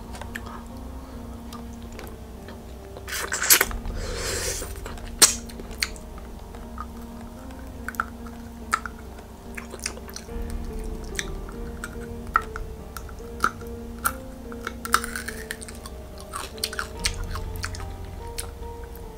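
Mouth sounds of a dice-shaped hard-candy lollipop being sucked and licked: scattered wet clicks and smacks, with a couple of longer slurps, over soft background music.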